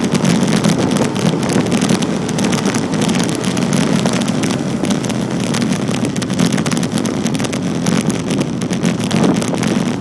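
Steady wind rushing and buffeting over the microphone of a camera moving at speed on a road, over a continuous low rumble of road and vehicle noise.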